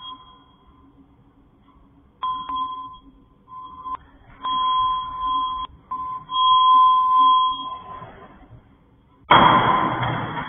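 Electronic beeping: a steady high tone that switches on and off in uneven pulses of half a second to over a second, with a few sharp clicks. Near the end a loud burst of noise lasts about a second and fades.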